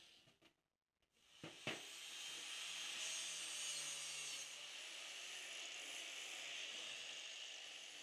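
Angle grinder working steel: a steady, hissing grind with a faint motor whine under it. A short drop to near silence comes just after the start, followed by two sharp clicks before the grinding settles in.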